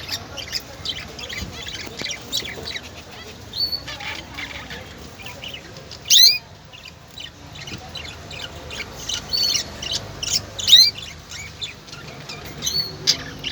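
Small birds chirping and twittering in quick, overlapping short notes, with two louder calls about six and eleven seconds in.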